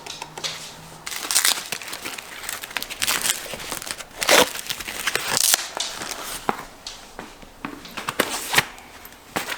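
Packaging wrap being pulled off a new bike, crinkling and tearing in uneven bursts.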